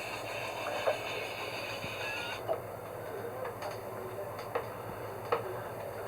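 A few light knocks and bumps, footsteps and handling on the wooden boat's cabin sole and companionway as a person moves up into the cockpit, over a steady low hum.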